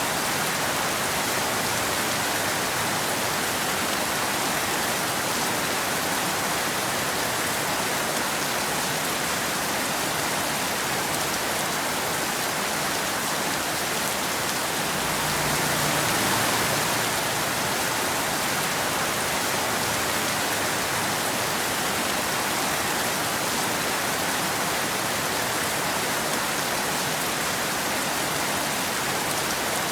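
Steady rain falling and pattering on wet pavement and foliage, an even hiss with a slight swell about halfway through.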